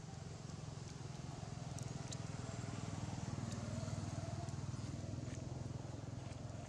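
A low, steady engine hum that grows louder toward the middle and then eases, with a few faint clicks.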